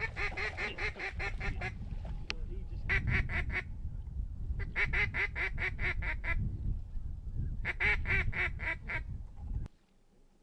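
Duck quacks in four quick runs of about eight calls a second, over a low wind rumble that drops away near the end.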